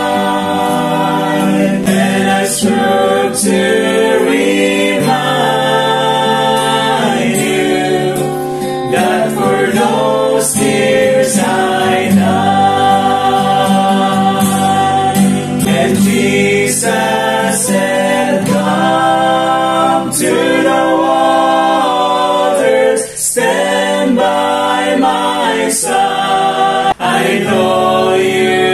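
A small mixed group of voices singing a slow gospel song in harmony, accompanied by strummed acoustic guitar.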